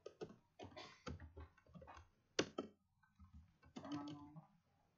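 Computer keyboard being typed on: an uneven run of key clicks, with one sharper, louder keystroke about two and a half seconds in.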